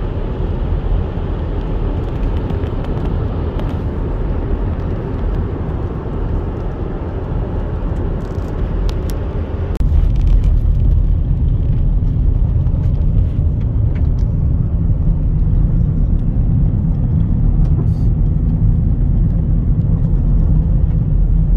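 Road noise inside a moving car's cabin: a steady low rumble of tyres and engine. It gets louder about ten seconds in, with the car on a gravel road.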